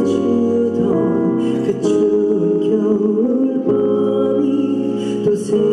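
Male vocalist singing a slow ballad live into a microphone, with long held notes over soft instrumental accompaniment.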